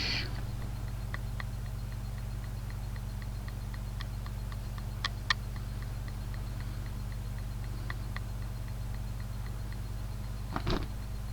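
Light, sharp taps, some in quick pairs a few seconds apart, with a short scratchy knock near the end. They sit over a steady electrical hum and faint regular ticking from the camera's microphone. The uploader takes the tapping for something unexplained.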